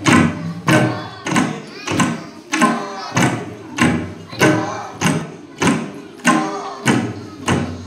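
Several tabla sets played together in a slow, even rhythm, a heavy stroke about every 0.6 seconds with the drums ringing between strokes.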